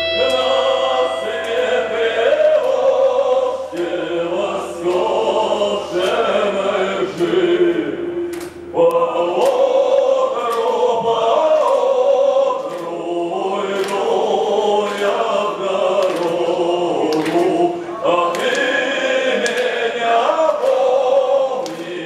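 Many voices singing together in a choir-like chorus over a low held note that stops about nine seconds in, after which the singing goes on almost unaccompanied.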